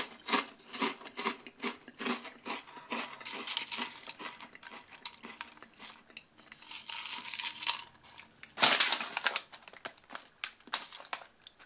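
Crunchy ridged Lorenz Crunchips potato chips crackling as they are chewed and picked up, many small crunches in quick succession. About nine seconds in there is a louder, longer crinkle of the plastic chip bag.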